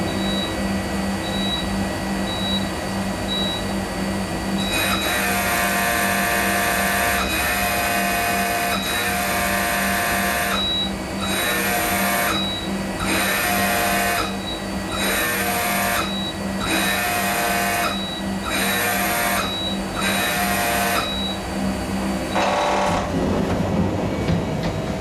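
Okuma lathe spindle motor, run by a VACIII D22 spindle drive under test after repair. It whines in a high, multi-pitched tone that switches on and off about ten times, each time for just over a second, starting about five seconds in, over a steady machine hum. A short louder burst comes near the end.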